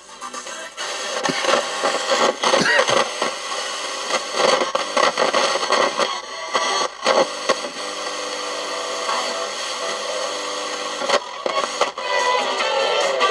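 Roberts RFM3 portable radio sounding through its small replacement speaker while it is tuned, with snatches of broadcast talk and music. It has no bass.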